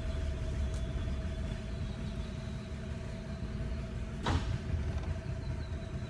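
A small boat's motor running steadily: a low rumble with a steady hum. A single sharp knock comes about four seconds in.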